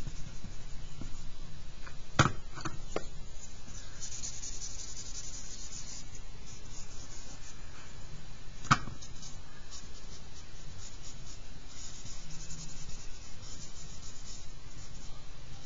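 Eraser and charcoal stick rubbing and scratching on paper in bursts. A few sharp taps land about two seconds in, and one more near the middle.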